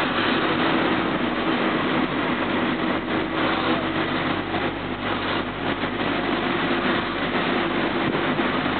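Car engine and road noise heard from inside a slowly moving car: a steady drone with a low hum underneath.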